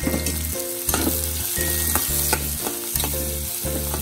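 Chopped onions sizzling as they fry in hot oil in a wok, with a metal spatula scraping and tapping the pan several times as they are stirred.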